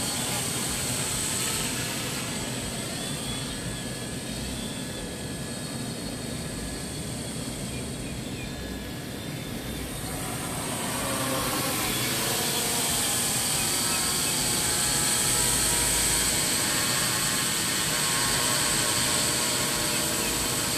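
Quadcopter's electric motors and propellers buzzing in flight, with a many-toned whine that shifts in pitch as it holds position and corrects. It grows fainter in the middle as the drone moves off, then louder again as it comes back closer.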